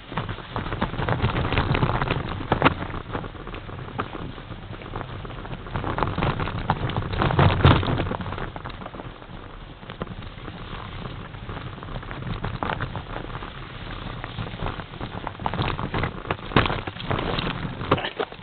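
Mountain bike ridden over a snowy, rough trail: tyres crunching and rumbling, with frequent sharp knocks and rattles from the bike and camera over bumps. The loudest knock comes a little before halfway.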